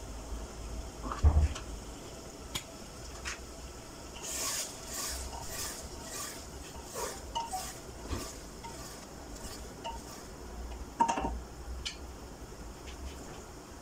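A wooden spoon stirs minced meat, onions and green capsicum in an aluminium pressure cooker, with a run of scraping strokes against the pot. A loud knock comes about a second in as the chopped capsicum is tipped in, and another knock comes near the end.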